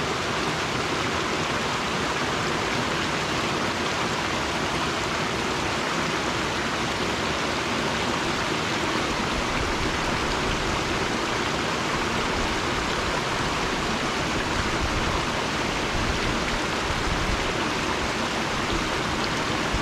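Small mountain stream running over rocks and through a little cascade: a steady rush of water.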